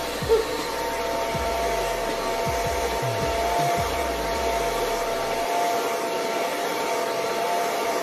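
Handheld hair dryer with a comb attachment running steadily: rushing air with a steady motor whine over it. A low fluttering rumble under it drops away about five and a half seconds in, and there is a short bump just after the start.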